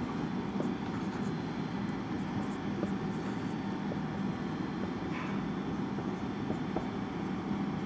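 Marker pen drawing on a whiteboard in faint short strokes, over a steady low background hum.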